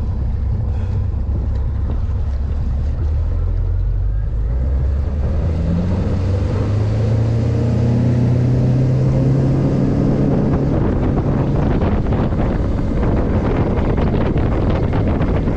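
An engine speeding up, its low hum climbing in pitch for several seconds, then running at speed as rushing wind noise on the microphone grows louder.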